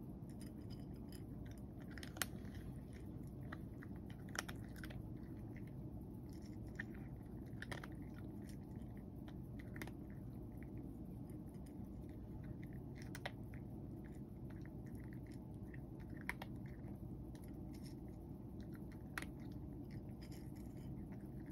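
A cat eating dry kibble from a bowl, with sharp crunches every two or three seconds over a steady low hum.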